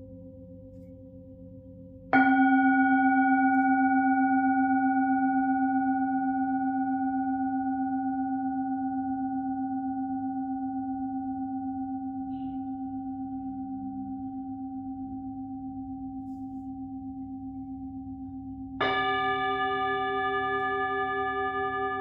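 Singing bowl struck about two seconds in and left to ring, its tone slowly fading with a gentle wobble. It is struck again near the end, ringing brighter.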